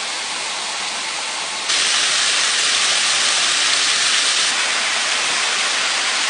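Shallow stream running over rocks: a steady rushing of water that steps up louder about two seconds in.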